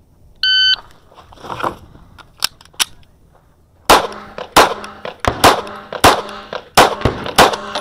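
A shot timer beeps once, about half a second in. After a pause of about three seconds, a Kahr CW9 9mm pistol fires a quick string of about seven shots, roughly one every two-thirds of a second.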